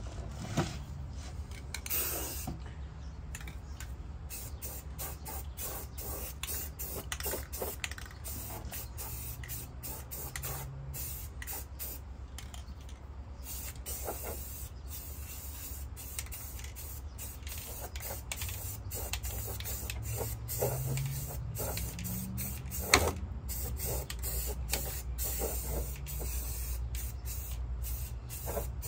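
Aerosol can of gloss paint spraying in repeated hissing bursts, stopping and starting every second or so, as a truck frame is painted. A steady low hum runs underneath, and one sharp knock comes past the middle.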